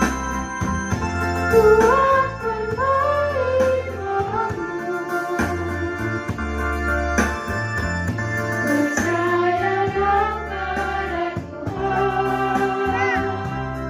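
A small mixed choir of men and women singing a hymn in parts over sustained organ-style keyboard chords that change every second or two.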